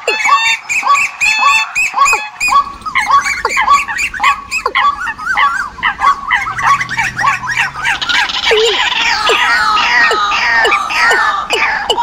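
Recorded decoy bird calls played for luring migrating birds: a fast, regular series of harsh repeated calls, with more birds' calls layered in so that it grows denser about eight seconds in.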